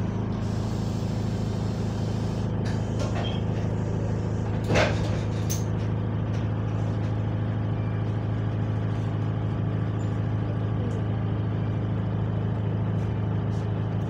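Bus engine idling steadily, heard from inside the passenger saloon, with one short sharp noise about five seconds in.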